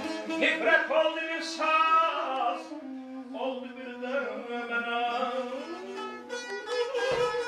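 Azerbaijani ashiq music: a saz and a balaban playing an instrumental passage, a melody with sliding notes over plucked strings and a steady held note.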